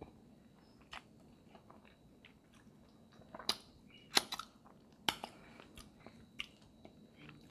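Close-miked chewing and wet mouth sounds of someone eating seafood boil, with scattered small clicks and a few sharper snaps in the middle.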